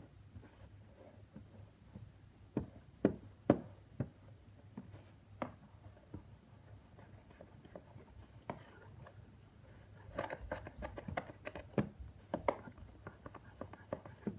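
A small knife cutting and scraping through blocks of kinetic sand on a hard tabletop: scattered sharp taps of the blade on the table, then from about ten seconds in a denser run of small scraping and crumbling noises.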